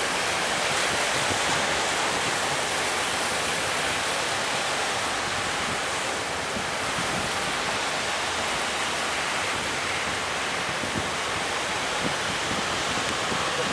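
Steady rush of surf and breaking waves, with wind buffeting the microphone.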